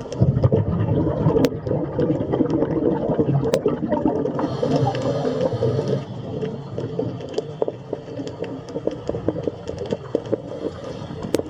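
Underwater ambience sound effect: a steady, low watery rumble crackling with many small clicks, with two sharper clicks in the first four seconds. It eases slightly about six seconds in.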